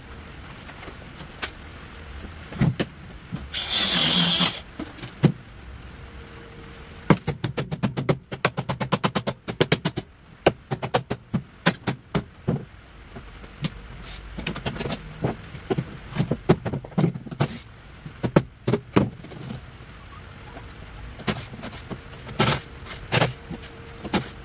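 Tools working the plywood deck of an old trailer loose. Scattered knocks and taps, a short harsh rasp about four seconds in, and a fast run of taps from about seven to ten seconds.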